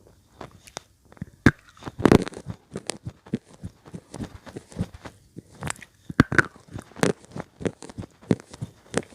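Slate pencil being bitten and chewed: sharp snapping bites about one and a half and two seconds in, then a steady run of dry crunches, several a second.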